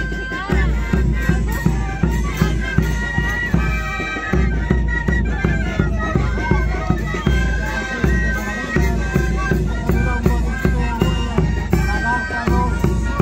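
Andean folk dance music for a troupe's performance: a band of wind instruments playing held melody lines over a steady bass drum beat.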